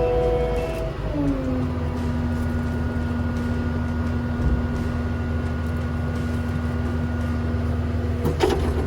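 Takeuchi TL12V2 skid steer's turbocharged diesel engine running. Its pitch drops about a second in as the revs come down, then it holds a steady lower note. A sharp clunk comes near the end.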